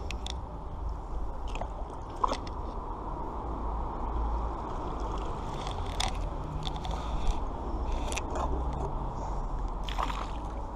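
Magnet-fishing rope being hauled in by hand and dragged over a concrete canal edge: scattered scrapes, rustles and crackles, with a steady low rumble underneath.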